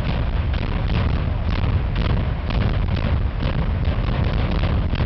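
Demolition charges going off in quick, irregular succession during the implosion of a coal-fired generating station's powerhouse. The blasts merge into a continuous crackling rumble with no pause.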